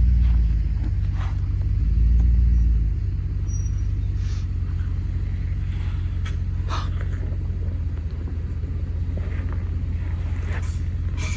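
2018 Toyota 4Runner TRD Off-Road driving slowly on a rough trail: a low steady rumble that swells twice in the first three seconds, with scattered faint knocks and clicks.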